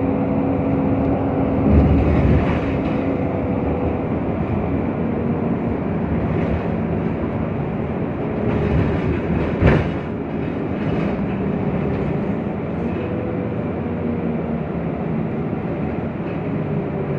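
Cabin noise aboard a VDL Citea LLE city bus under way: its Cummins natural-gas engine and ZF EcoLife automatic drivetrain run with a steady whine that shifts in pitch, over road rumble. There is a thump about two seconds in and a sharp knock about ten seconds in.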